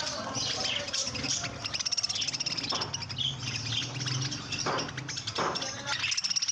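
Pet budgerigars chirping and chattering: many quick, high, overlapping chirps, with a few short knocks among them.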